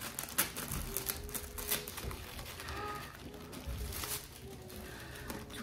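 Paper packaging rustling and crinkling in short bursts as a box is opened by hand, over soft background music.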